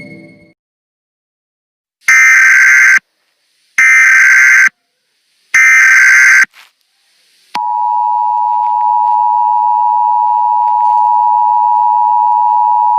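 Emergency Alert System SAME header: three loud bursts of digital data tones, each just under a second long and about a second apart. About halfway through, the steady dual-tone EAS attention signal starts and holds, cutting off suddenly at the end.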